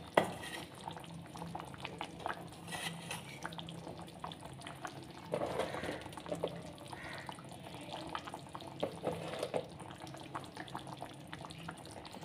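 Chicken korma gravy with potatoes simmering in a kadai, bubbling with many small, irregular pops. A single sharp click comes at the very start.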